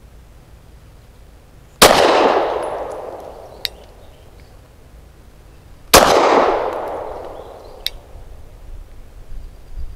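Two 9mm pistol shots from a Lone Wolf Arms Dusk 19, about four seconds apart, each ringing out in a long echo across the range. A faint sharp tick follows each shot.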